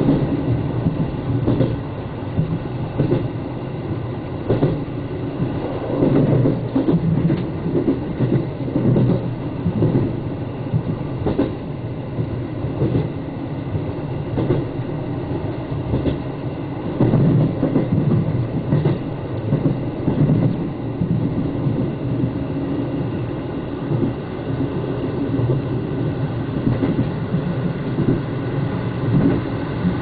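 Running noise of a JR Hokkaido 785-series electric express train heard inside the passenger cabin as it pulls out of a station: a continuous rumble with irregular clacks of the wheels over rail joints and points.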